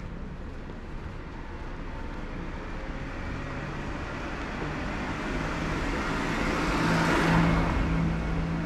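A car approaching along the street and passing close by. Its engine hum and tyre noise build steadily and are loudest about seven seconds in, then begin to fade.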